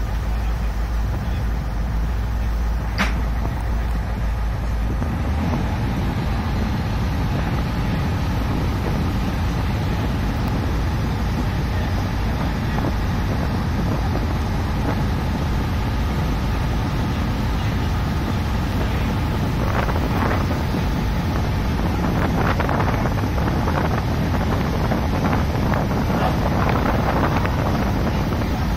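Thames Clipper river-bus under way: steady engine and water noise, with a brief click about three seconds in.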